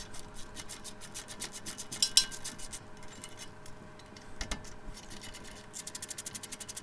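Hand ratchet clicking as the 13 mm caliper-to-bracket bolts on a truck's front brake are backed out, with a sharp clank about two seconds in and a fast, even run of clicks near the end.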